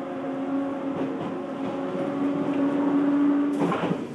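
Odakyu 1000-series electric train heard from inside the car while running: a steady traction-motor whine rising slowly in pitch as the train gathers speed, over wheel and track noise. About three and a half seconds in the whine stops with a short rattling burst.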